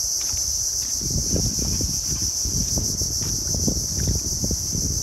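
Chorus of insects, a steady high-pitched drone, with irregular low rustles and soft knocks starting about a second in.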